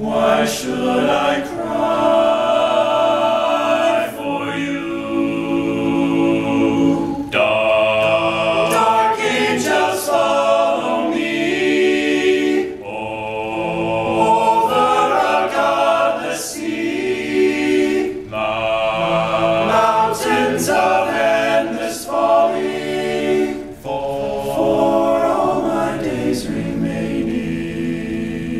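All-male a cappella group singing in close harmony, voices only with no instruments, the held chords shifting every couple of seconds.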